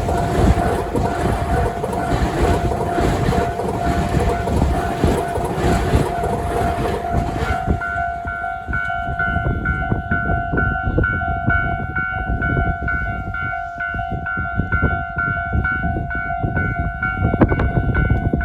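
Tobu Railway level-crossing alarm sounding its standard repeating ding-ding tone while a train passes over the crossing. About seven and a half seconds in, the train noise stops and the alarm rings on alone in a steady rhythm.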